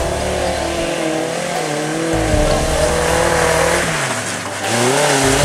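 Suzuki Samurai four-cylinder engine revving up and down under load as the 4x4 spins its tyres through deep mud, with mud spraying. The engine note rises sharply near the end.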